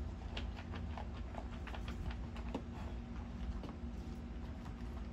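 A dog eating dog food from a plastic bowl: quick, irregular crunching clicks of chewing and of teeth against the bowl, over a low steady rumble.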